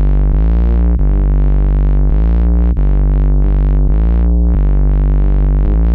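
Synthesizer music: sustained chords held at a steady level, each sliding smoothly in pitch into the next about every second.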